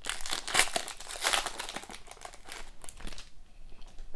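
Foil wrapper of an Upper Deck Ice hockey card pack crinkling and tearing as it is pulled open by hand. The crackling stops about three seconds in.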